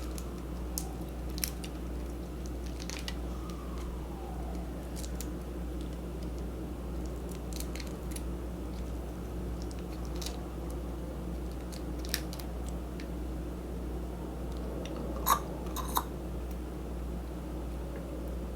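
Close-miked eating sounds of shrimp and ramen being chewed: scattered wet smacks and clicks, a few of them louder near the end, over a steady low hum.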